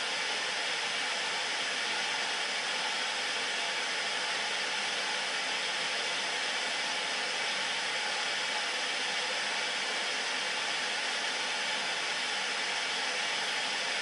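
Steady, even static hiss from an old analog television receiving no signal, its screen showing snow.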